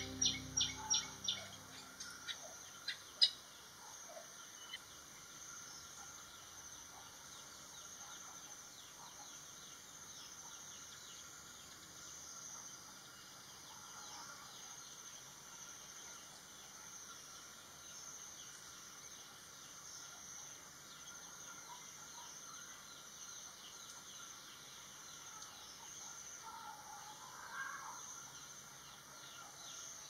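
Faint garden ambience: scattered high bird chirps over a steady high-pitched background hiss. Music and a quick run of sharp high notes fade out in the first second or two, and a brief lower call sounds near the end.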